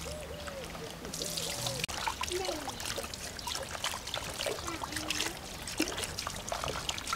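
Water trickling and pouring in a thin stream, growing stronger about a second in.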